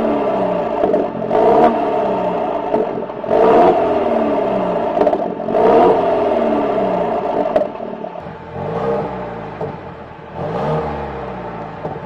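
Mercedes-Benz GLE350's 2.0-litre turbocharged four-cylinder revved repeatedly through a valved stainless-steel cat-back exhaust, each rev rising and falling back about every two seconds. At first the exhaust valves are open, for the loud sporty sound. From about eight seconds in the revs are quieter with the valves closed.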